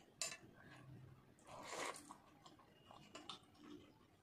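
Close-up eating sounds: chewing and wet squishing as rice and dal are mixed by hand. A sharp click comes just after the start, and a louder, noisier smack about a second and a half in.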